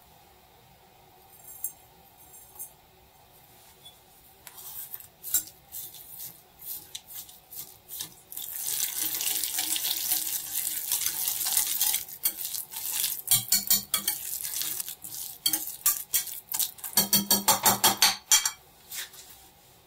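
Kitchen utensils clinking and tapping on dishes, then a few seconds of steady pouring. Near the end comes a burst of quick, even strokes: a spoon stirring briskly against a small bowl.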